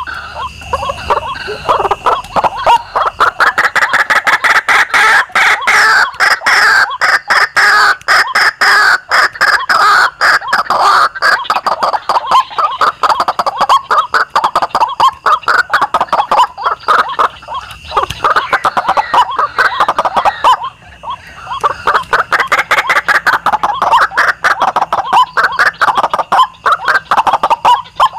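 White-breasted waterhen calls: a fast, continuous run of harsh, rasping notes with a short pause about three-quarters of the way through.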